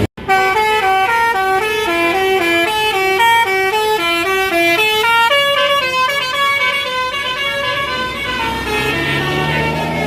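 A bus's basuri musical air horn playing a quick melody of stepping notes, then holding a few longer notes. Near the end a low engine note rises in pitch.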